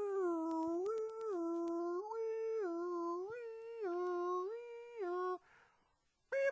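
A person humming a bouncy little tune, a silly dubbed sound effect. The voice swings back and forth between a low note and a higher one about every half second, and stops about five and a half seconds in.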